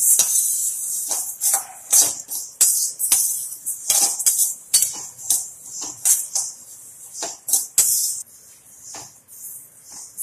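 Split moong dal being dry-roasted in a stainless steel kadai, stirred with a perforated steel ladle: a rhythmic, hissy rattle and scrape of lentils against steel, about two strokes a second. The strokes grow quieter in the last couple of seconds.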